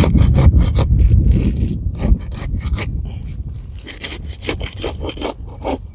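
Asphalt roof shingle being pried loose from its sealant strip: scraping and rasping under the shingle tab with many sharp clicks, heavier with a low rumble in the first two seconds or so.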